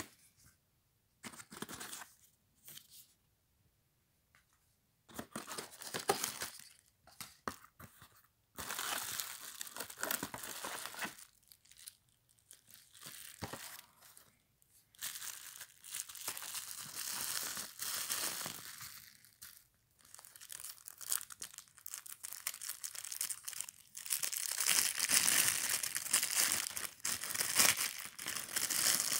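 Paper leaflets and a clear plastic bag handled by hand during a lens unboxing, rustling in bursts separated by short pauses. The rustling becomes steady and louder over the last few seconds as the lens is handled in its plastic bag.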